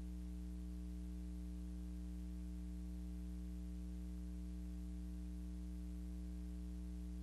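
Steady low electrical hum with a light hiss underneath, unchanging throughout; no other sound.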